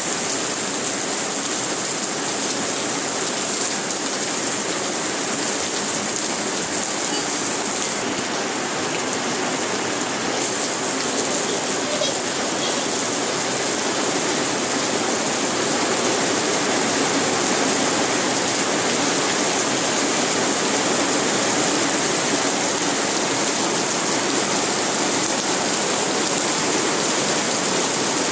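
Steady rain falling, a dense even hiss of drops with no separate strikes standing out; it grows slightly louder about halfway through.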